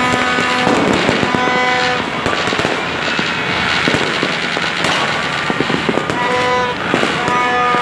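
Many fireworks and firecrackers going off across the neighbourhood in a dense, continuous crackle of bangs and pops. Horns honk in blasts of about a second near the start and again near the end.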